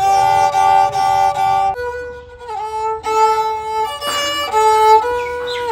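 Bodo serja, a bowed folk fiddle, playing a slow melody of long held notes. The pitch changes every half second to a second, with short slides between some notes.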